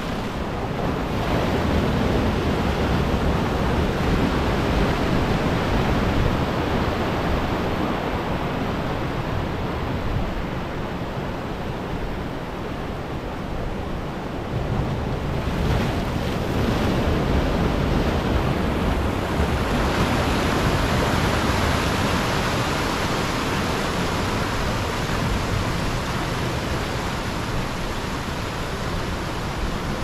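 Ocean surf breaking and washing among shoreline rocks: a continuous rushing of water that swells and eases as each wave comes in, growing brighter and stronger a little past the middle.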